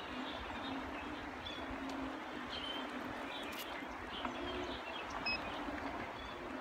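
Outdoor ambience: small birds chirping in short scattered calls over a steady background hum. A single short electronic beep sounds about five seconds in.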